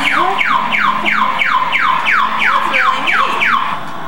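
Battery-powered toy airplane's electronic sound effect: a rapid run of falling, siren-like sweeps, about three a second, that stops near the end.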